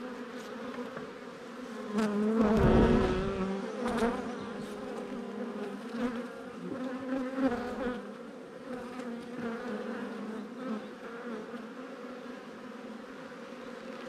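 Honey bees buzzing around an opened hive as its frames are inspected: a steady, wavering hum, which swells louder for a moment about two to three seconds in.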